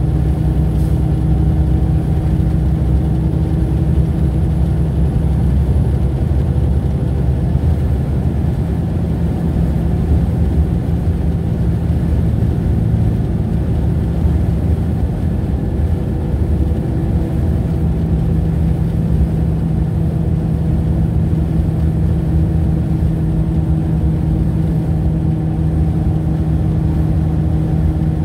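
Vehicle engine and road noise heard from inside the cab while cruising at highway speed: a steady low drone with an even hum.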